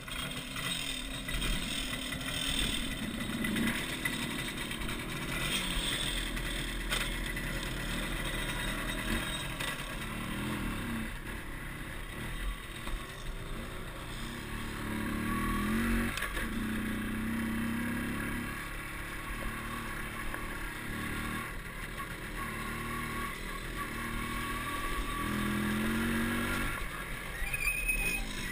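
MZ ETS 250 Trophy Sport's single-cylinder two-stroke engine running as the bike rides along, its revs climbing and dropping several times.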